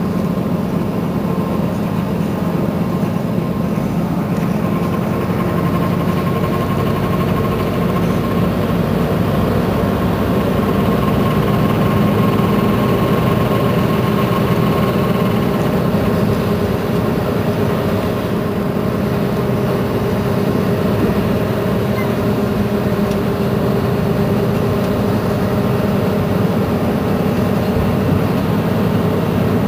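Mercedes-Benz Citaro C2 city bus engine idling steadily.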